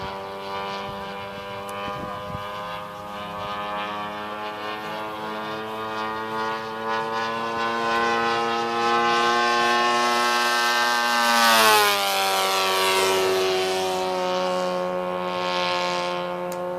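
Giant-scale radio-controlled warbird model's engine and propeller droning in flight. It grows louder and slightly higher as the plane comes in, then drops sharply in pitch as it passes overhead about two-thirds of the way through, and fades a little as it flies away.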